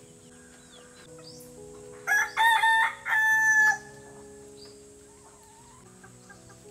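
A rooster crowing once, about two seconds in: a loud cock-a-doodle-doo of just under two seconds in three parts, ending on a held note.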